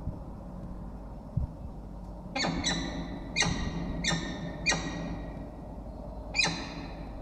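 Peregrine falcons calling during pair bonding: a run of short calls, each sliding down in pitch, five in quick succession starting a couple of seconds in, then one more near the end.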